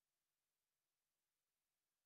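Silence: a digital near-silence with only a faint even hiss, no sound events.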